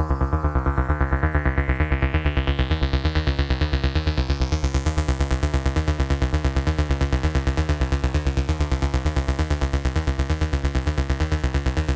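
Eurorack modular synthesizer playing a fast, even pulsing pattern over a deep bass. The tone brightens steadily over the first six seconds, like a filter opening, and then stays bright.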